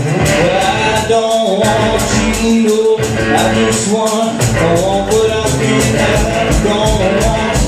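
Live rock band playing an instrumental passage with a steady driving beat and a wailing lead line over it.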